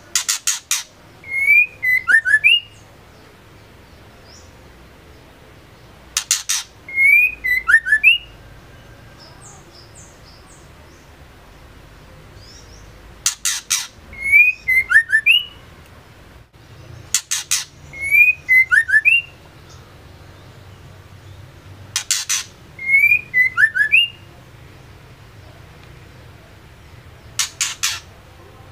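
Female white-rumped shama calling. It gives a quick run of sharp, rattling clicks, then a short slurred whistle, and repeats the phrase six times at intervals of four to six seconds; the last phrase is clicks alone.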